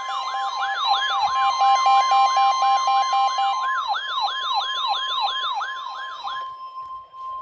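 Emergency weather alert receivers sounding together: a yelping siren alarm that sweeps down in pitch about three times a second, over a steady high tone like the NOAA Weather Radio warning alarm tone that comes before a warning. A fast beeping tone also plays and stops about halfway through. The siren stops near the end, leaving only the steady tone.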